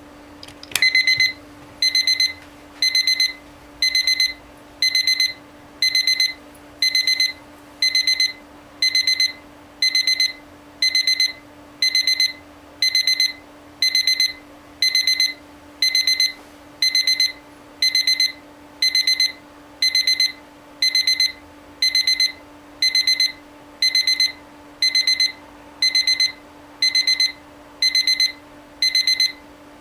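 Lowell JA6006V electronic alarm clock sounding its alarm: high-pitched bursts of rapid beeping, about one burst a second in a strictly even rhythm, starting just after a click.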